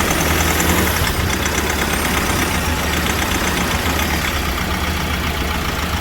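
Mahindra XUV500 diesel engine running at a steady idle with a rapid knocking clatter, the abnormal noise under diagnosis.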